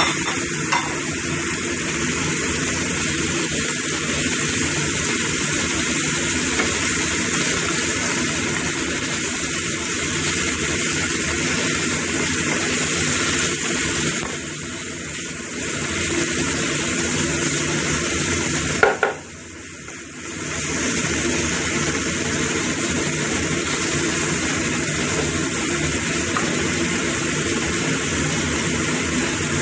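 Chicken strips, tofu and salted mustard greens sizzling steadily in hot oil in a frying pan, stirred and turned with a wooden spatula. The sizzle drops away for a moment after a sharp click about two-thirds of the way in, then resumes.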